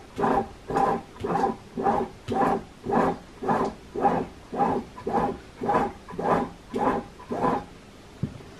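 Stepper motor of a 6040 CNC engraver driving its X axis back and forth in short moves, about two a second, each move a brief pitched whine that swells and fades; the moves stop near the end. The axis runs without the clickety click of play, its linear bearings freshly tensioned with their adjustment screws.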